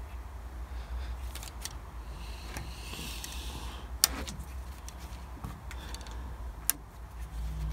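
An Eaton high-low range shift valve's selector lever being handled: two sharp clicks, about four seconds in and again near the end, over a low steady hum.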